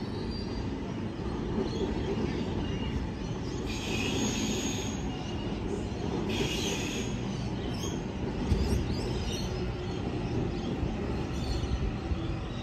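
A train running along the rails with a steady rumble, and brief high-pitched wheel squeals about four and six and a half seconds in.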